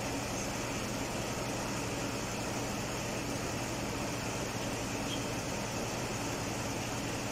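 Mazda CX-9's engine idling steadily with its air conditioning running while refrigerant is charged in through a gauge set, a constant even hum.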